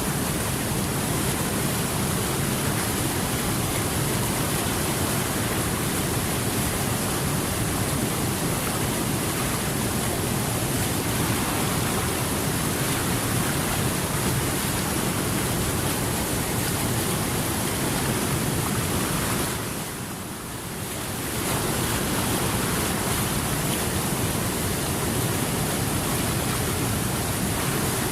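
Steady rushing of flowing water, an even wash of noise with no distinct splashes. It dips briefly about two-thirds of the way through, then comes back at the same level.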